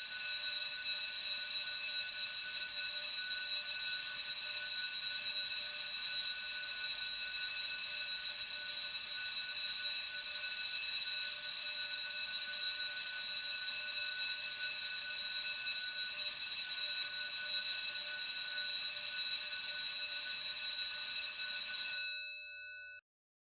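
School bell ringing continuously for about twenty-two seconds, then cutting off sharply while the bell's tones fade out over about a second.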